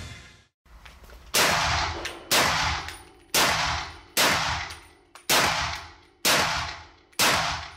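M1 Garand semi-automatic rifle in .30-06 fired seven times at a steady pace of about one shot a second, each shot dying away in the echo of an indoor range.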